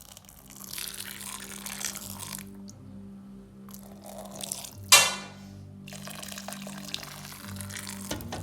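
Background music over hot water being poured from a kettle into a cooking pot, with one sharp clatter about five seconds in.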